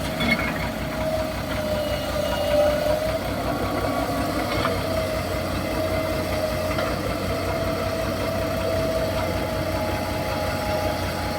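Hitachi EX200-2 excavator's diesel engine running steadily, with a faint steady whine over the low drone. Its hydraulic pump and pressure were freshly reset by a mechanic.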